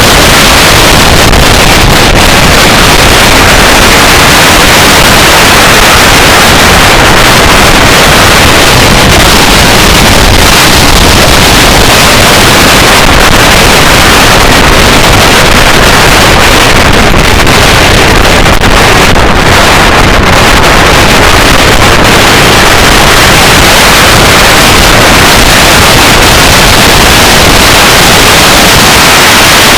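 Wind noise from a car driven at speed: a dense, steady rush so loud that the recording is overloaded throughout, with no engine note or separate sounds standing out.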